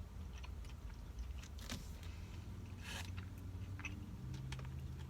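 Low steady rumble of a car cabin, with a few faint soft noises from eating and handling food.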